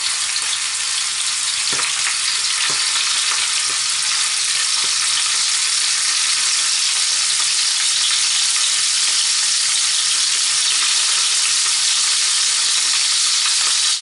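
Pork roast searing in hot oil in a roasting pan: a steady, loud sizzle, with a couple of faint pops about two seconds in.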